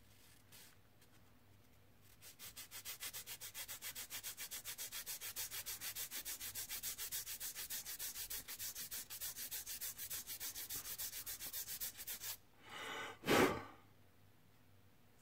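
A small plastic model part being rubbed back and forth on a flat abrasive file, a quick, even scraping at about six strokes a second that starts about two seconds in and stops about twelve seconds in, smoothing down the sprue gate marks. Near the end come two short whooshes of air, the second one loud.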